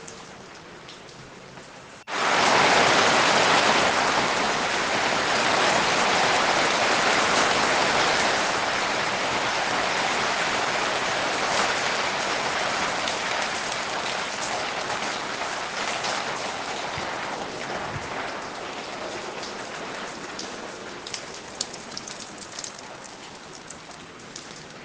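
Rain falling: lighter at first, then suddenly much heavier about two seconds in, and easing off gradually after that, with a few separate drips ticking near the end.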